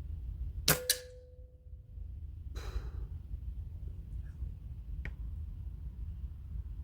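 A .22 air rifle firing: two sharp cracks in quick succession, then a short ringing tone. About two seconds later comes a breathy exhale, and a faint click near the end.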